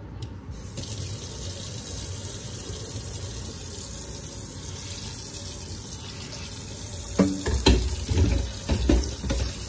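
Kitchen tap running steadily into a sink, turned on about half a second in. From about seven seconds in, irregular knocks and clatter come on top of it as a frying pan is washed under the stream.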